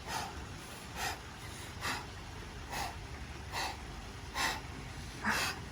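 A person taking quick, sharp breaths, about one a second, bracing against cold water before plunging under in a cold plunge pool.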